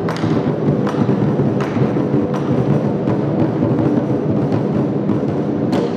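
Large single-face Chinese barrel drums beaten with wooden sticks by several drummers in a fast, dense roll, with sharp accented strikes standing out every second or so and a strong one near the end.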